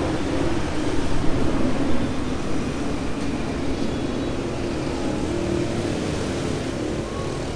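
Steady vehicle noise with no clear single event.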